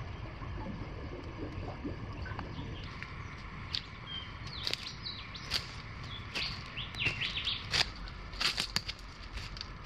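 Bare footsteps crunching and snapping on dry leaf litter and twigs, coming closer and loudest near the end, with small birds chirping in short calls.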